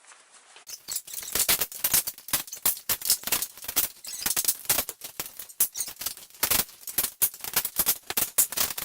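Wooden pallet being pried and knocked apart, heard as a rapid, irregular clatter of sharp knocks, cracks and rattles, several a second, as if the footage is sped up. It starts abruptly about a second in.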